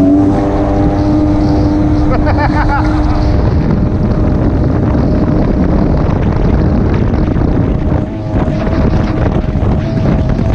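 Personal watercraft (jet ski) engine running at speed, its pitch holding steady after revving up, under a heavy rush of wind and water spray.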